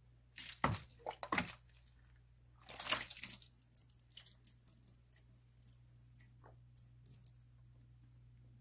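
Thick, unfiltered sake mash squelching as it is scooped from a bucket by hand, with several wet squishes in the first second and a half. About three seconds in comes a longer, louder wet slosh as the mash is poured into the filter, then a few light clicks and taps over a faint steady low hum.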